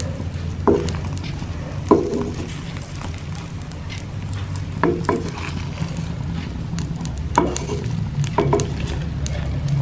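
Wooden spatula scraping and knocking against a non-stick frying pan several times while it folds the cooked egg over a slice of egg-dipped bread, which fries with a faint sizzle. A steady low hum runs underneath.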